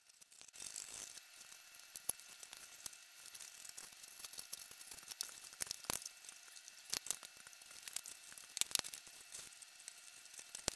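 Thin balsa sheeting being pried and peeled off a model airplane's wooden fuselage with a hobby knife: a continuous run of small crackles and scratches with a few sharper snaps of the wood, the loudest about six, seven and nine seconds in.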